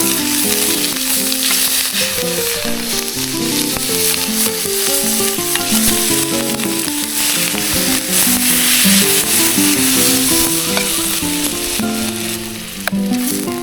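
Food sizzling and frying in a pan, a constant crackling hiss, under background music with a melody of held notes.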